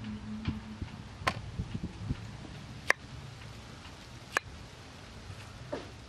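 Cleaver slicing through pineapple onto a wooden cutting board: three sharp knocks of the blade on the board about a second and a half apart, with lighter taps between.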